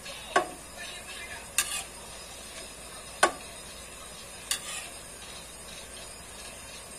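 Four sharp clinks of a metal spoon against a frying pan as cooked chicken feet are scooped out, over the steady sizzle of adobo sauce in the pan.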